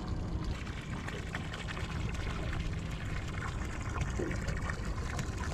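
Bay water lapping and trickling against the hull of a drifting boat, a steady wash with many small splashes.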